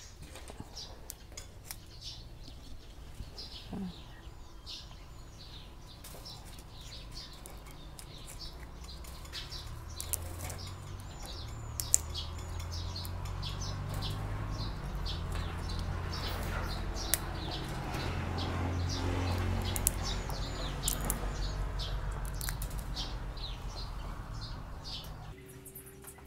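Dry agati seed pods being split and picked apart by hand, giving many small crackles and clicks, with birds chirping around. A low rumble builds from about ten seconds in and fades again before the end.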